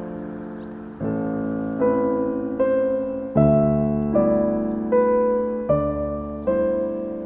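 Background music: piano chords struck at a steady, unhurried pace, a little more than one a second, each fading before the next.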